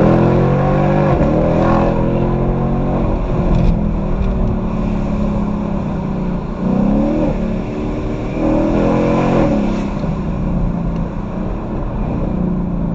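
Ford Mustang GT's V8 engine driven hard, its pitch rising and falling several times as it revs up and eases off.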